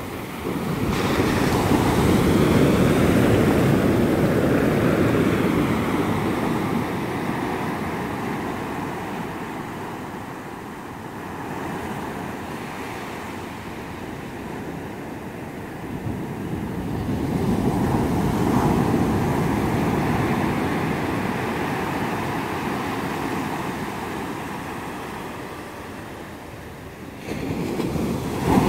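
Ocean surf breaking and washing up a sandy beach, coming in slow surges: a wave rushes in about a second in and slowly fades, a second one builds around the middle, and another breaks sharply near the end.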